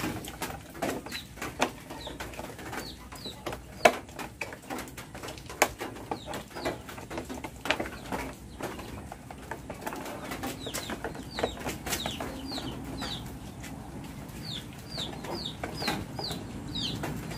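Plastic clicks and knocks from a Honda Supra GTR150's headlight cowling being unclipped and handled, the loudest knock about four seconds in. Birds chirp in the background, with a quick run of falling chirps near the end.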